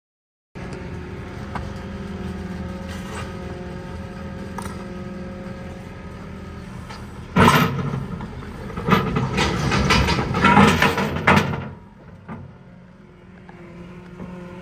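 A vehicle or machine engine running steadily, starting abruptly about half a second in. It gets much louder and harsher for about four seconds in the middle, then drops back to a quieter run.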